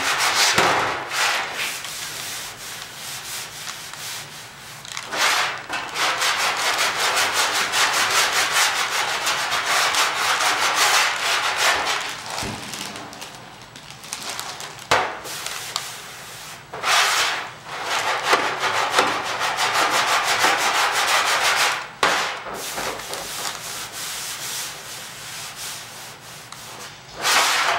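Hand sanding across the bare metal of a Citroen DS trunk lid: quick back-and-forth rubbing strokes, broken by a few short pauses and several sharp knocks. The rubbing is guide sanding over a dent, to show up the ripples and high spots in the panel.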